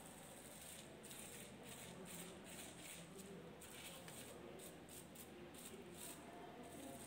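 Faint, irregular scratchy rustling of a paintbrush stroking paint over bubble wrap, with the plastic crinkling softly under the hands.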